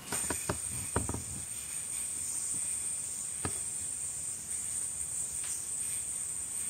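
Spinning yoyo giving a steady high-pitched whir as it spins on its string. Sharp clicks of the string and yoyo sound several times in the first second and once more about three and a half seconds in, as string tricks are worked.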